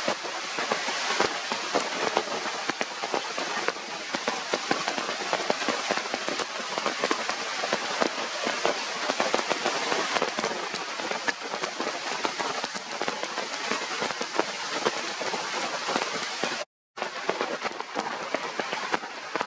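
Heavy rain falling: a steady, dense hiss of drops with many sharp ticks, cut off for a split second about three-quarters of the way through.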